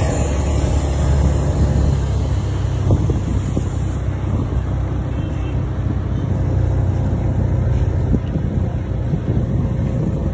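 Motorcycle engine running steadily at cruising speed, heard from the moving bike, with wind rushing over the microphone.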